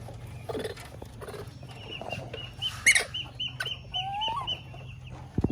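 Baby monkey's whistling calls: a quick row of short, high chirps, about three or four a second, starting about two seconds in. One louder call comes near the middle and a short rising call follows near the end.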